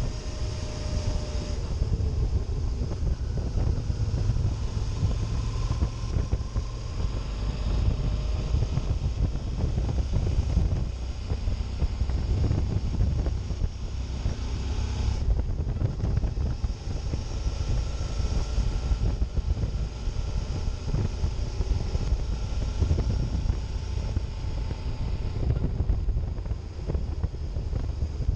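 Wind buffeting the microphone over a Suzuki DL 650 V-Strom's 645 cc V-twin engine running along at road speed, the engine note rising and falling faintly beneath the wind noise.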